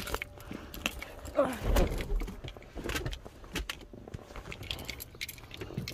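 Scattered clicks, taps and rustling inside a car as the driver settles into her seat, with a dull low thump about two seconds in.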